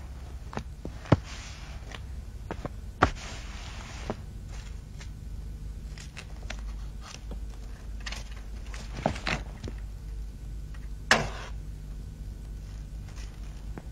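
Scattered sharp clicks and knocks with soft rustling as people settle into chairs at a meeting table, over a low steady hum. The loudest click, about 11 seconds in, is followed by a short hiss.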